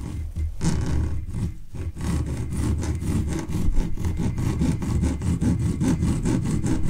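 Bastard file rasping back and forth across the steel edge of a Swiss Army knife tool. The strokes are short and rapid, faster and more even from about two seconds in. The file is cutting a square spark-striking edge for a ferrocerium rod.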